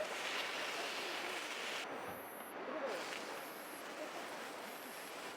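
Steady hissing sizzle of meat cooking on a thick iron griddle over a wood fire. The hiss dips briefly about two seconds in.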